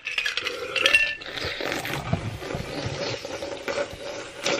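Drinking from a glass: small clinks of ice or glass with liquid sloshing and swallowing.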